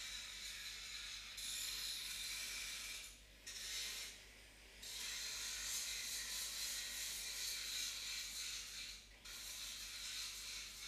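Rapid keyboard typing in bursts, a dense clatter of key clicks with short pauses about three seconds in, around four seconds in, and near nine seconds in.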